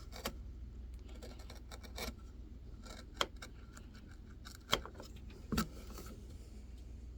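Hand-carving work on white birch: scattered small clicks and scrapes, with a few sharper knocks about a second apart near the middle.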